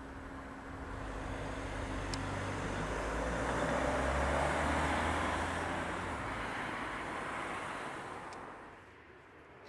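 A vehicle passing by: a rumble that swells, is loudest about four to five seconds in, and fades away near the end.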